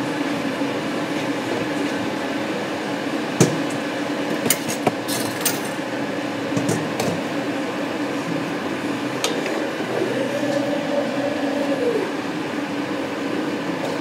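A metal fork clinking against the side of a clear jug of water with pasta in it, several sharp clinks in the first half. A steady low hum runs underneath.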